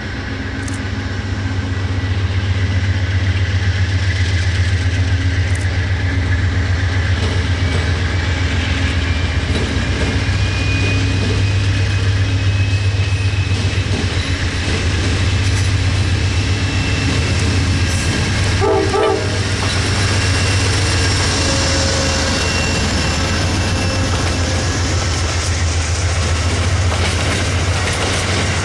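Amtrak GE P42DC diesel locomotive approaching and passing with a steady low engine drone that grows louder about two seconds in, followed by its passenger coaches rolling by with wheel clatter.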